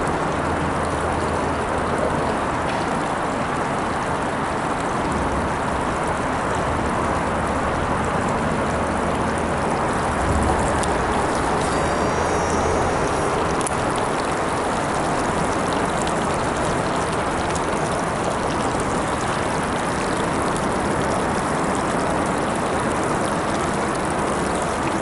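Steady rushing noise of moving water at the shore, with a low hum beneath it for about the first half.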